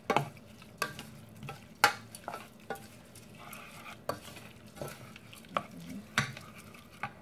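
Wooden spoon stirring minced chicken larb in a stainless steel pot, knocking against the pot's sides about ten times at an uneven pace over a soft scraping rustle of the mixture. The loudest knock comes about two seconds in.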